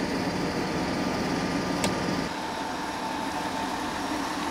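MCI J4500 motor coach's diesel engine idling with a steady low rumble. A little past two seconds in the rumble falls away, leaving a steady high hum.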